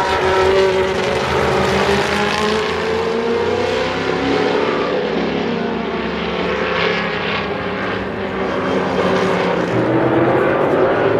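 Historic Can-Am race car engines running loud and unbroken, several at once, their pitch rising and falling as they rev.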